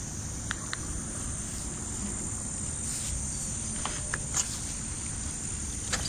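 Steady high-pitched chirring of insects in the pondside vegetation, over a low rumble, with a few faint clicks.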